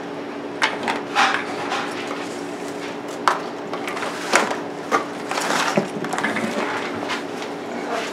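Plastic blister packs and small parts being picked up and handled, giving irregular crinkles, clicks and light knocks, over a steady low hum.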